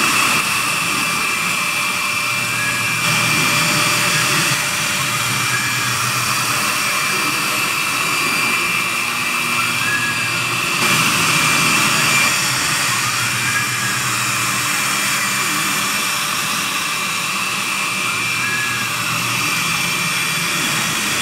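CNC router's high-speed spindle running with a steady high whine while its narrow tapered bit carves a wood relief, over a constant hiss of cutting. Short rising-and-falling tones come in now and then.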